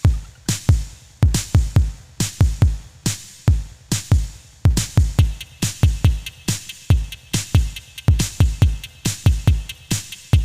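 Background music: an electronic beat with deep, sweeping bass-drum kicks and crisp snare and hi-hat hits in a steady rhythm.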